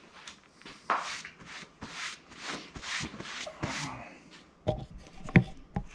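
A shop rag rubbing over a plywood workbench in a run of short swishes, then a few sharp knocks near the end.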